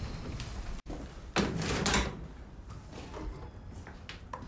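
A door opening with a short noisy rattle about a second and a half in, followed by quieter scattered clicks of handling.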